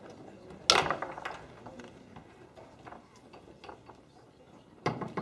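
Foosball being played on a Tornado table: two loud, sharp cracks of the ball being struck hard off the men and walls, one about a second in and one near the end, with lighter clicks and knocks of the ball and rods in between.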